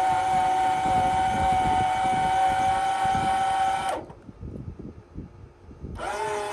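Electric motor and gearbox of an RV's Lippert Ground Control 3.0 leveling jack, powered straight from a tester to check the motor and gearbox: a steady whine while extending the jack under load, cut off abruptly about four seconds in. About six seconds in it starts again, sweeping up to a lower-pitched whine as it runs in reverse to raise the jack.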